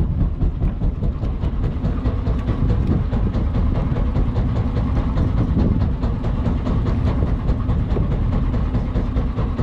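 Small fishing boat's engine running steadily, with wind buffeting the microphone.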